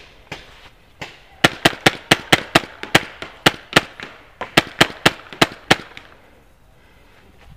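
Tippmann Phenom paintball marker firing rapidly: about twenty sharp pops in two quick strings, starting about a second and a half in, with a short pause in the middle and stopping about a second and a half before the end. Lighter, regular ticks come before the shooting starts.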